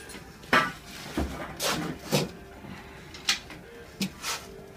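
Several irregular short knocks and clicks, about seven in under five seconds, the loudest about half a second in, over a faint steady hum.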